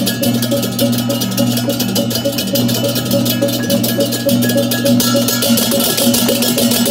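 Balinese baleganjur gamelan playing: a fast, dense stream of clashing cengceng hand cymbals over kendang drums, with steady ringing pitched metal tones underneath.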